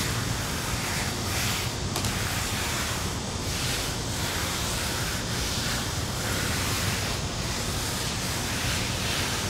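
Steady outdoor background noise, wind on the microphone, with no distinct events.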